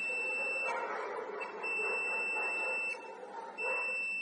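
UNI-T digital multimeter's continuity buzzer sounding a steady high-pitched beep, cutting out twice briefly as the probes touch the two ends of a wire. The beep signals continuity: the wire is intact, not broken inside.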